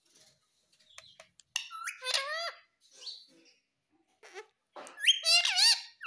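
Rose-ringed (Indian ringneck) parakeet making short, arching calls in two bursts, about two seconds in and again louder near the end, after a few faint clicks.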